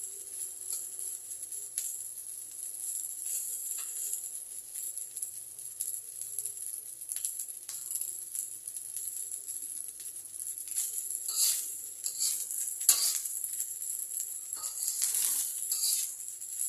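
Egg fried rice sizzling in a pan with a steady hiss while a spatula scrapes and knocks through it, with louder strokes in the last third.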